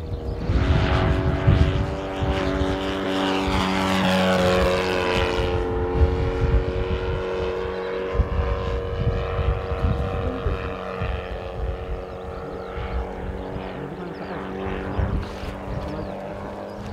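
Saito FG-41TS 41 cc flat-twin four-stroke petrol engine driving the propeller of a radio-controlled model airplane in flight, running steadily. Its pitch shifts a little about four seconds in, and it grows fainter after about twelve seconds.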